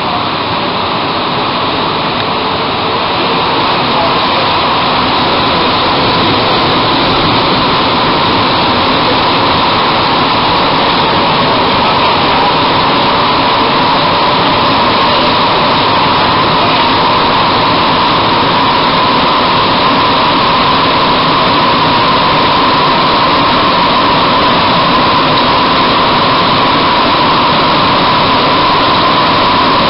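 Montreal Metro Bombardier-Vickers MR-63 rubber-tyred train running through a tunnel, heard from inside the car: a steady rushing noise with a high whine. It grows louder over the first few seconds as the train picks up speed out of the station, then holds steady.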